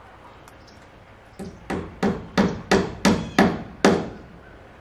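Hammer blows, about eight in a row at roughly three a second starting a little over a second in, fastening house wrap to the wall of a shed.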